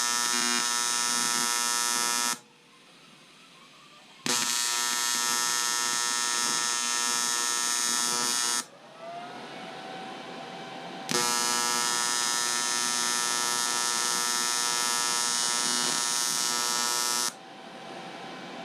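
Electric welding arc buzzing on an aluminium motorcycle crankcase repair. It runs in three long stretches, each starting and stopping abruptly, with quieter pauses between them.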